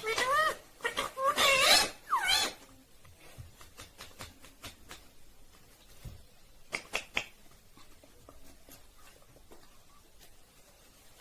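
Indian ringneck parrot whistling and calling: a run of loud notes that swoop up and down in pitch over the first two and a half seconds, then light clicks and, about seven seconds in, two or three short high calls.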